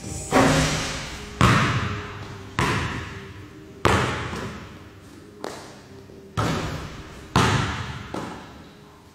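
A basketball bouncing on a gym floor, about eight separate bounces roughly a second apart, each echoing on in a large hall.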